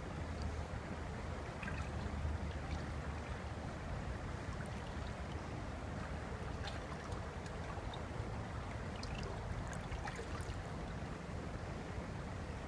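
Steady rush of water from a small river waterfall, with a few light ticks scattered through it.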